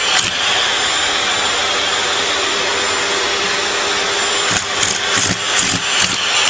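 Vacuum cleaner running steadily at its hose nozzle, a high airy whine. From about four and a half seconds in it wavers, with a few short catches.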